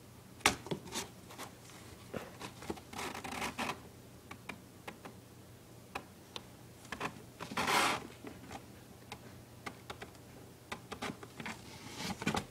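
Kittens' claws scratching and scrabbling on a cardboard box: scattered sharp taps and clicks, with two longer scraping rushes, one about three seconds in and a louder one just before the eight-second mark.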